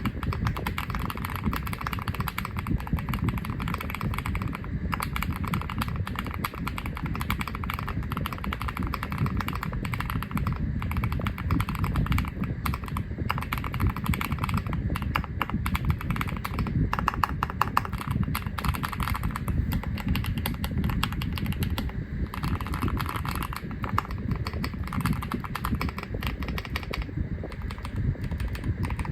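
Steady, rapid typing on an Epomaker Galaxy68 aluminum-cased 65% mechanical keyboard: a continuous stream of key-switch clicks and keystrokes.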